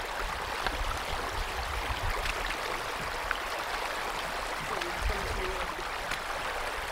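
Shallow river running steadily over stones and rocks at a ford, an even rushing burble of water.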